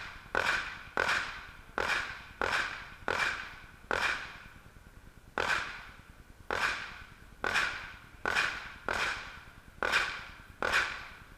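A string of about thirteen 9mm pistol shots from a Glock 17 Open-division race gun, fired at an irregular pace of roughly one a second with a short pause near the middle, each shot followed by a brief ring.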